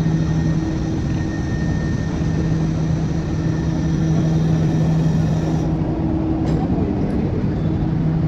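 Inside a moving passenger train coach: the running train makes a steady rumble with a constant low hum.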